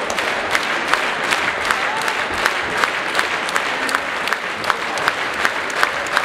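Theatre audience applauding a curtain call: a dense wash of clapping, with sharp claps falling into a steady beat of about three a second.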